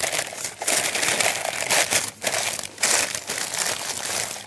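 A sheet of baking paper crinkling and rustling in gloved hands as it is pressed and folded into a metal tin to line it, an irregular crackle with a few short pauses.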